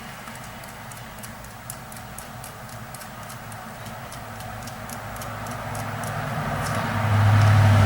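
Light, even ticking at about three ticks a second, with a low hum that grows loud near the end.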